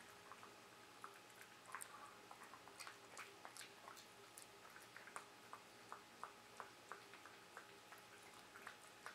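Beagle chewing and mouthing a Dentastix dental chew: faint, irregular wet clicks and crunches, a few a second.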